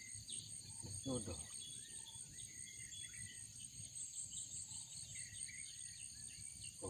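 Insects shrilling in a steady high-pitched drone, with scattered short bird chirps over it.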